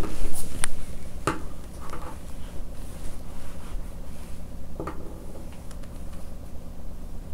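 Scissors cutting through lining fabric: a few scattered sharp snips and blade clicks, with light rustling, over a low steady hum.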